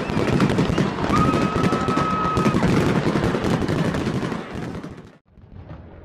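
Fireworks going off in a rapid, dense barrage of cracks and bangs. A steady whistle sounds for about a second and a half starting about a second in. Near the end the barrage fades, breaks off briefly, then resumes more quietly.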